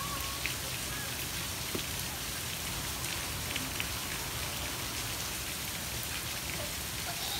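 Steady rain falling, an even hiss with a few faint ticks of single drops.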